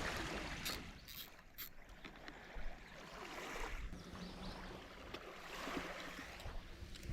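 Water sloshing and lapping against a small boat's hull, swelling and fading twice, with a few light knocks near the start.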